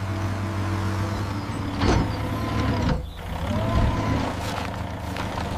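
Cartoon construction machine's engine running steadily, with a sharp clunk about two seconds in and a wavering whine through the middle as the digging arm works.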